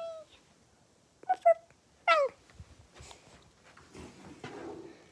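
High, meow-like calls that fall in pitch: one fading at the start, two short loud squeaks about a second and a half in, and another falling meow just after two seconds. Soft rustling of handling follows near the end.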